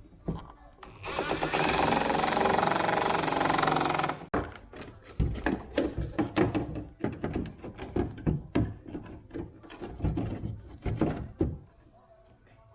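Hands and tools at work on a pickup's tail light. A harsh, even noise runs for about three seconds and stops abruptly, then follows a run of irregular knocks and clicks as parts are handled and fitted.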